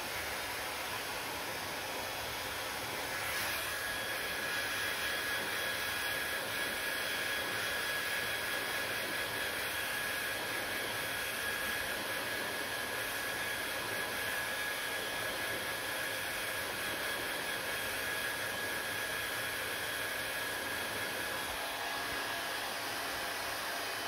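Panasonic hair dryer blowing steadily as hair is dried, a steady rushing of air. About three seconds in it gets a little louder and a thin high whine sets in, which fades out near the end.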